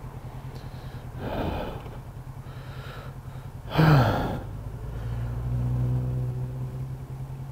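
Motorcycle engine idling low, heard from inside the rider's helmet, with the rider's heavy breathing in freezing air: one breath about a second in and a loud gasping exhale about four seconds in. Another vehicle's engine hum swells briefly as it passes close by, from about five to seven seconds.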